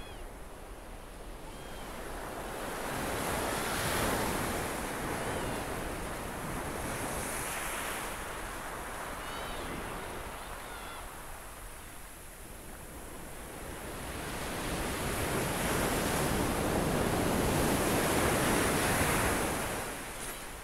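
Sea waves breaking and washing up a shingle beach, the surf swelling louder twice, a few seconds in and again in the second half.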